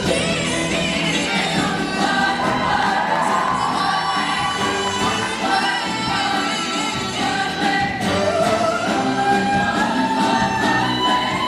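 A high school show choir singing in harmony over an instrumental backing, with long held and gliding notes.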